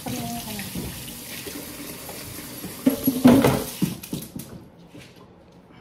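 Kitchen tap running into the sink, turned off about four and a half seconds in, with louder knocks of kitchenware around three seconds in.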